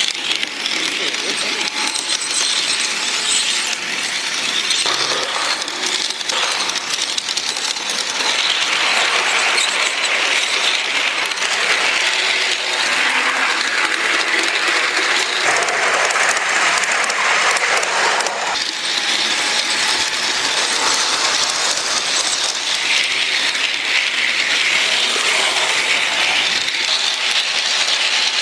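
G-gauge model train running along its garden railway track, picked up close on board: a continuous fast metallic rattle and clicking from the running gear and wheels on the rails.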